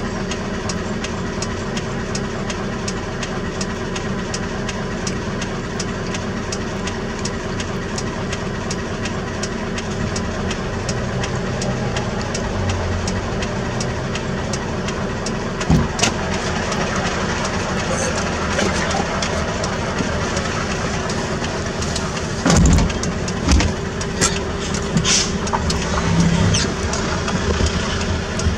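Heavy diesel engine of the bulldozer-hauling equipment running at a steady speed, with a regular light ticking about three times a second. A few loud metallic clanks come in the second half.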